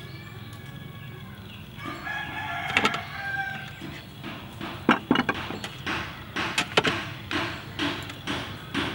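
A rooster crows once in the background about two seconds in. After that, a metal fork and spoon click and scrape sharply against sea snail shells on a metal tray, several clicks a second.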